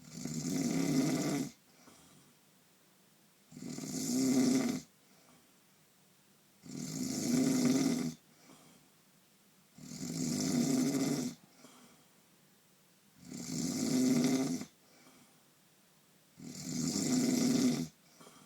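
Snoring: six long snores at a steady rhythm of about one every three seconds, each a buzzing rasp that swells and then cuts off sharply, with quiet breathing between.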